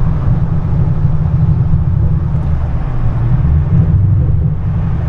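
Steady low rumble of a car's engine and road noise while driving.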